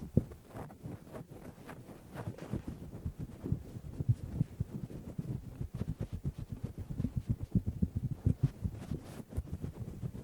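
Fingers scratching a towel-covered microphone, giving a rapid, uneven run of muffled low scratches and thuds that grows denser and louder partway through.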